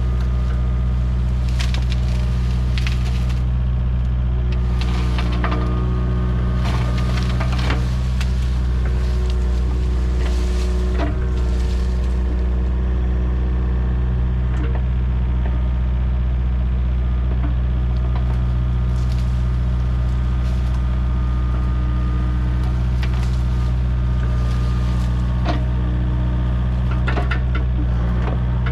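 Kubota KX057 mini excavator's diesel engine running steadily while the machine breaks through brush and small trees, with repeated sharp cracking and snapping of wood and branches.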